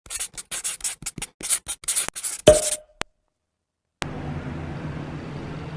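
A quick run of about a dozen short, scratchy strokes ending in a sharp thump, then a second of dead silence and faint room tone with a low hum.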